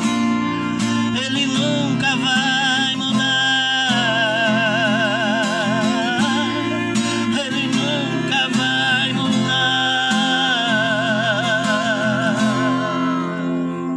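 A man singing a sertanejo ballad with heavy vibrato over a strummed acoustic guitar. Near the end the voice stops and the last guitar chord rings on.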